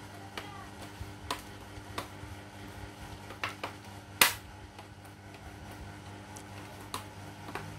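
Sharp plastic clicks from the laptop's case as hands press along the palm rest and front edge to snap the clips home, about eight of them at uneven intervals, the loudest about four seconds in. A steady low hum runs underneath.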